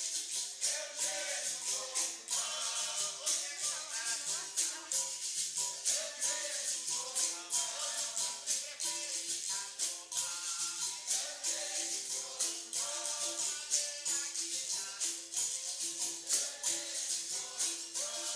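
Capoeira roda music: voices singing over berimbau and pandeiro. The shaken and struck percussion ticks several times a second in a steady, even rhythm.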